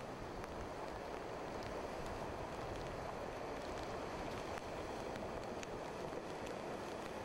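Steady wash of storm surf breaking on the ocean, an even noise without pauses.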